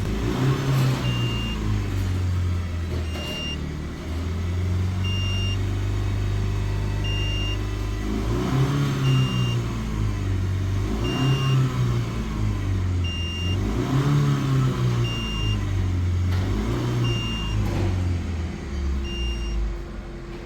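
Honda Vezel Hybrid's engine being revved in sport mode, its pitch rising and falling in several blips. A short electronic beep repeats about once a second. The mechanic traces a strange sound under revs to the gearbox and suspects the dual-clutch bearing.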